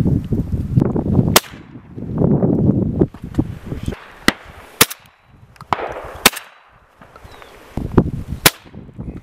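Shotgun shots, about six sharp cracks at uneven intervals, some louder and some fainter.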